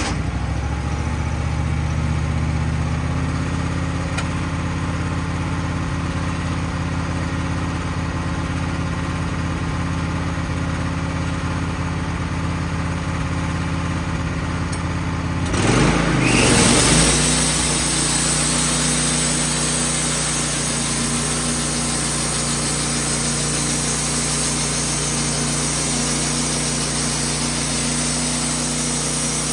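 Wood-Mizer LT15 bandsaw mill's engine, just started, idling steadily; about halfway through it revs up to drive the band blade. It then runs at speed while the blade saws along a maple log.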